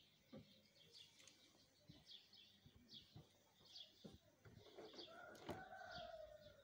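Faint small-bird chirps repeating at a steady pace, a little more than one a second, over scattered soft taps. Near the end a drawn-out, slightly falling tone comes in.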